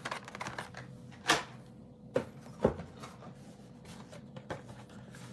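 Carded Hot Wheels cars in plastic blister packs being handled and lifted out of a cardboard box: a few short knocks and rustles of plastic and card.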